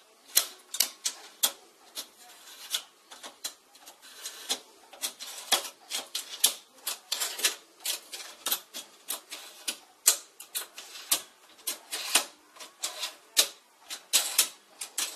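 Small aluminium levers of a model mechanical signal-box lever frame being worked back and forth by hand: a run of sharp metallic clicks and clacks at irregular intervals, a few each second.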